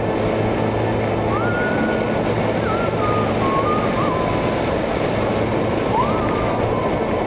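Steady wind rushing over the microphone of a camera carried on a tandem paraglider in flight. A faint thin tone slides up and then steps down in pitch about a second and a half in, and again near the end.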